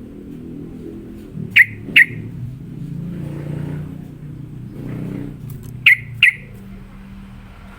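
Sooty-headed bulbul giving sharp, clipped call notes in two pairs, one pair about one and a half seconds in and another about six seconds in, over a steady low rumble.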